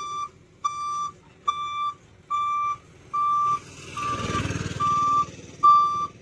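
Lorry reversing alarm beeping in evenly spaced pulses of one pitch, a little over one beep a second. In the middle, an engine rumble swells and dies away under the beeps.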